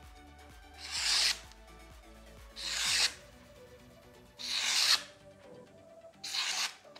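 Four abrasive hand-tool strokes, one roughly every second and a half to two seconds, each about half a second long, over soft background music.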